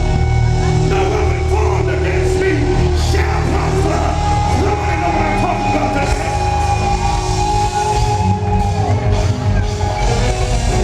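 Live R&B band playing loudly over a heavy bass, with a singer's voice over it.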